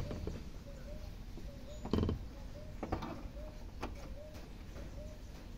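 Hands handling the plastic fuel pump module and its fittings in the fuel tank opening: a few sharp clicks and knocks, the loudest about two seconds in. Behind them a faint short chirp repeats about three times a second.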